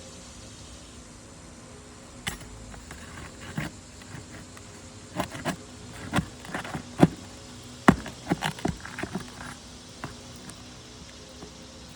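Irregular sharp clicks and knocks, a dozen or so, clustered in the middle, over a steady low hum.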